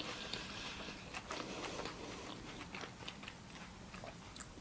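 Close-miked chewing of a mouthful of soft sub sandwich with the lips closed: quiet, wet mouth clicks and smacks scattered throughout.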